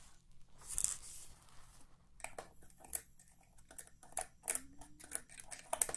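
Light scratching and scraping of a hand tool working packed lint and old grease out of the metal mechanism under a Singer 401A sewing machine. A soft scrape about a second in, then a quick, irregular run of short scratches and ticks from about two seconds on.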